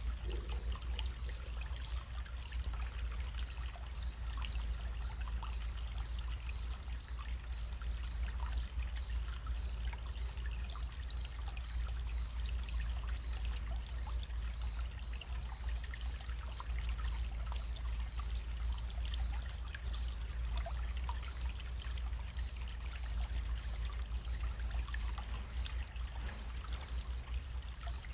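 Small running stream trickling and splashing steadily, with a steady low rumble underneath.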